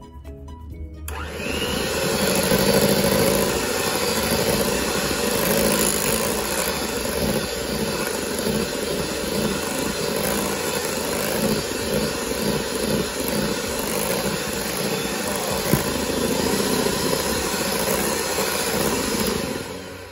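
Electric hand mixer running steadily, its twin beaters whipping cream and condensed milk in a stainless steel bowl; it starts about a second in and switches off just before the end.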